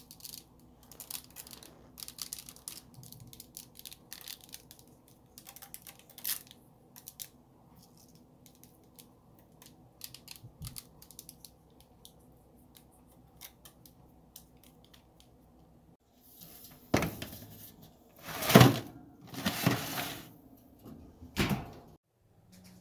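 Kitchen handling noises: scattered small clicks and ticks, then a handful of loud rustling, scraping sounds near the end, like paper or foil being handled.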